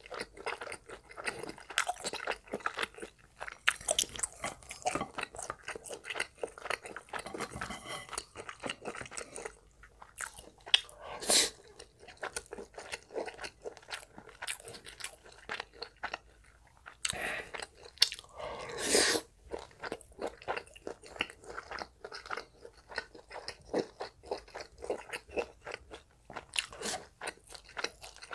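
A person chewing and crunching a mouthful of stir-fried spicy pork with rice and side dishes, close to the microphone: a quick, steady run of small crisp crunches, with a couple of louder bites partway through.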